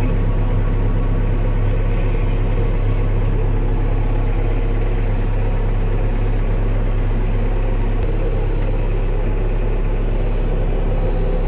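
Cat 430D backhoe loader's diesel engine idling steadily, a low even hum with no revving.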